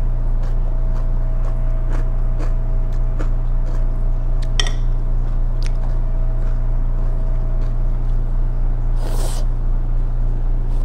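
Close-up eating sounds from a mukbang of crunchy spiralized cucumber salad: scattered small chewing clicks, a brief high squeak about four and a half seconds in, and a short slurp about nine seconds in as the strands are sucked up. A steady low electrical hum underlies everything and is the loudest part.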